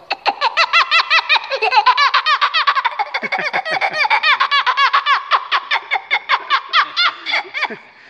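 A man imitating the chattering calls of small monkeys by mouth, with his hands cupped over his lips. It comes as a fast, even run of short, high chirps, several a second, and stops just before the end.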